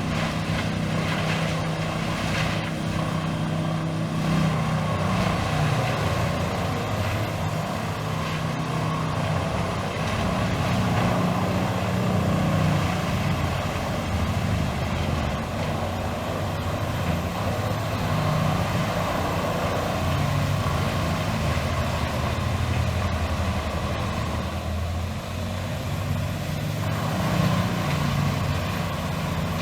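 Heavy diesel machinery running steadily, most likely the engine of a large whole-tree shredder (wood chipper), its low note wavering a little under load, with a faint high whine drifting above it.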